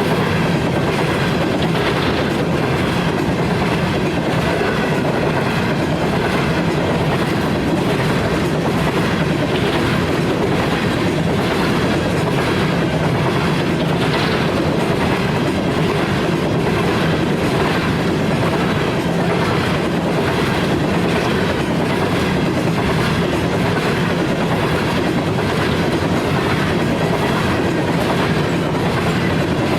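Freight train cars rolling past: a steady, loud rumble of wheels on rail with a clickety-clack over the rail joints.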